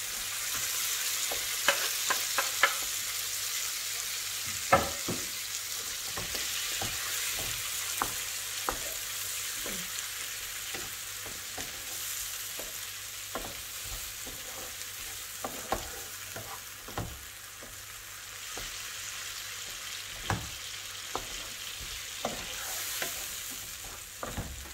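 Chopped tomatoes and sliced green chillies sizzling in butter and oil in a frying pan on a high flame, while a wooden spatula stirs them and knocks against the pan many times.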